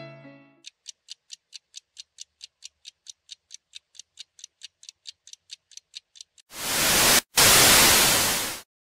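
Piano music fading away, then a fast, even ticking of about five ticks a second as a film-countdown sound effect. It ends in a loud burst of TV static about two seconds long, broken once by a short gap and cut off suddenly.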